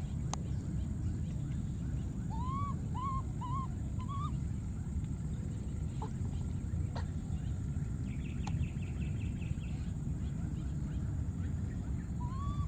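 Baby monkey giving short, rising-and-falling coo calls: four in quick succession a couple of seconds in, and more starting near the end. Under them there is a steady low rumble and a steady high whine.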